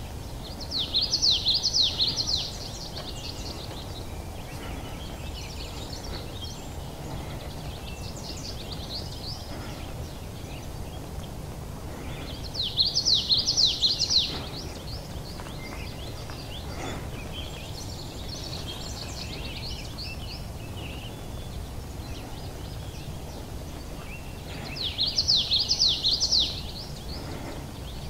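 A songbird singing the same short, quick, high-pitched song three times, about twelve seconds apart, with fainter songs of other birds in between, over steady low background noise.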